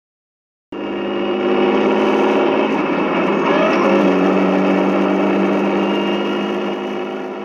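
Heavy truck engine running: it cuts in abruptly, holds a steady drone, then fades out near the end.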